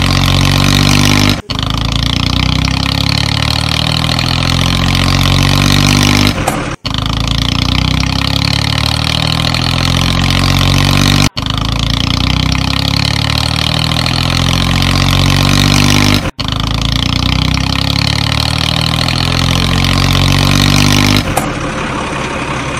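Dubbed-on engine sound effect: a motor running steadily, cut by a brief gap about every five seconds where the recording loops.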